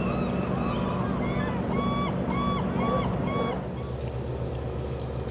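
A bird calls over and over in short, arching notes, about two a second, above a steady low engine hum. The calls stop about three and a half seconds in, and the hum gives way to a different steady low drone.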